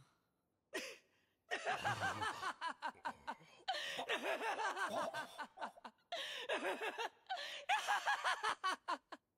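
A young man laughing loudly in triumph, in long runs of rapid bursts, starting about a second and a half in.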